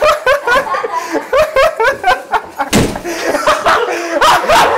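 Excited voices exclaiming and laughing, with one sharp bang a little past halfway through.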